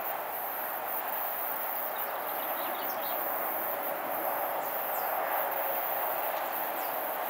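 Steady outdoor background noise with a few faint, short bird chirps over it.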